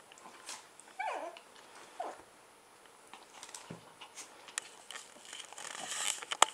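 Small dogs play-fighting. A falling yelp comes about a second in and a shorter one at two seconds, followed by scrabbling and rustling on bedding that builds towards the end, where there is a sharp click.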